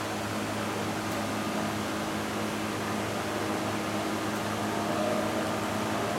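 Large drum fan running steadily: an even rush of air with a low, constant motor hum.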